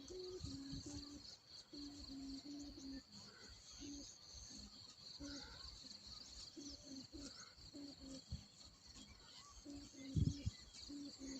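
Sanu kite hummer droning on a flying kite: a low hum that comes and goes in short spells as the wind catches it. Insects shrill steadily in the background, and a brief low thump comes about ten seconds in.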